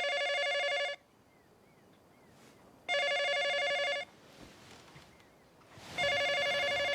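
Telephone ringing: three trilling rings of about a second each, with pauses of about two seconds between them, as an incoming call.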